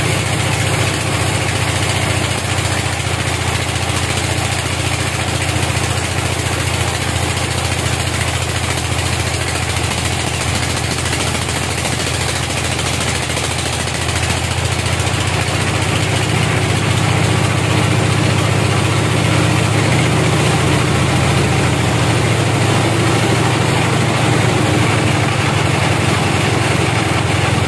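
Sawmill band saw running and cutting through a teak log: a steady machine drone with the hiss of the blade in the wood. It gets a little louder about halfway through.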